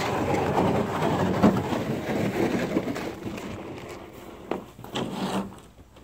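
Footsteps on a snow-covered wooden boardwalk, growing fainter, with a couple of short knocks near the end.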